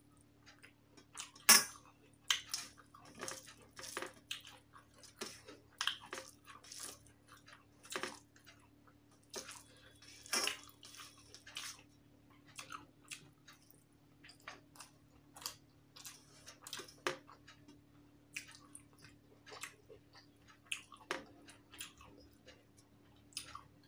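Close-up eating sounds of a person eating rice and curry by hand: wet chewing and lip smacks mixed with fingers squishing rice against a steel plate, an irregular string of short clicks, loudest about a second and a half in.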